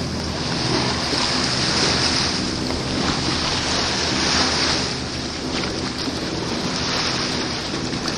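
Wind and sea on an outdoor camcorder microphone: a steady rushing noise with no distinct events.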